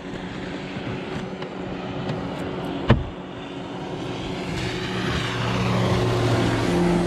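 Outboard motor of a passing bass boat running at speed, its steady drone growing louder in the second half. A single sharp knock about three seconds in.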